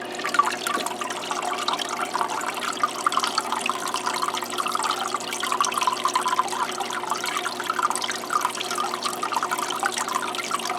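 Small aquarium waterfall: water running off a stone and splashing and trickling into the pool below, a steady bubbling patter.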